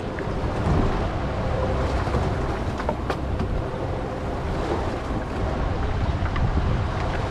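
Fishing boat's engine idling with a steady low rumble, with wind on the microphone and the sea washing around the hull.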